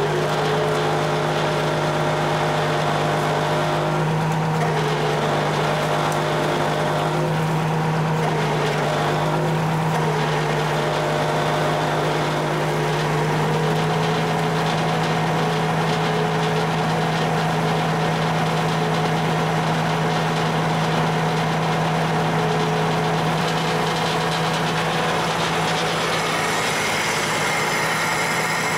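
Mercedes-Benz Unimog 406's six-cylinder diesel engine idling steadily. A higher whine joins in near the end.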